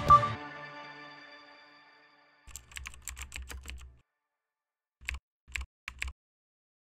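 A final music note rings out and fades over about two seconds, then a computer keyboard typing sound effect: a quick run of keystrokes for about a second and a half, followed by three separate key clicks about half a second apart.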